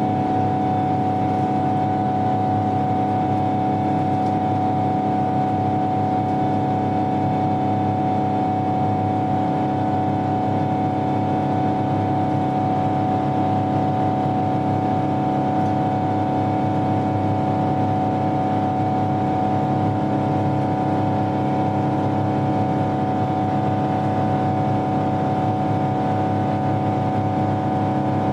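Boeing 777's GE90 turbofan engines heard inside the passenger cabin as a steady drone with a constant fan whine, unchanging in pitch and level.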